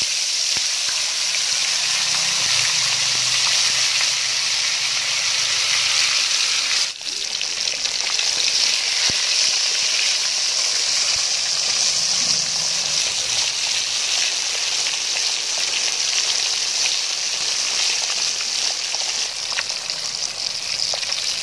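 A masala-coated whole fish deep-frying in hot oil in an aluminium pan, just lowered into the well-heated oil: a steady, loud sizzle that breaks off briefly about seven seconds in.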